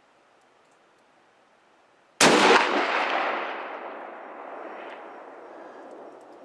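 A single shot from a .338 Lapua Magnum bolt-action rifle (Pierce action in an Accuracy International chassis): one loud, sharp report about two seconds in, followed by a long echo that fades away over about four seconds.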